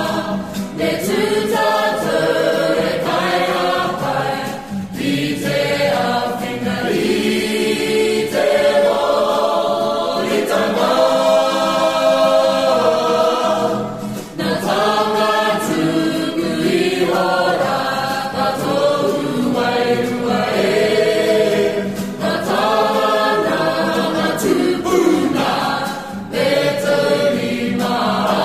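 Mixed choir of boys and girls singing a Māori-language song in several voices, in sung phrases with brief breaks between them.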